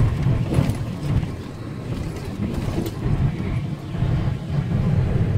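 Pickup truck cab interior while driving over a dirt forest road: a steady low engine and tyre rumble, with a few short knocks and rattles from the rough road.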